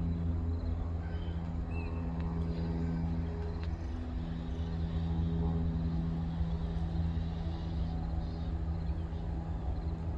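Diesel freight locomotive engine running steadily: a deep, even hum at a constant pitch.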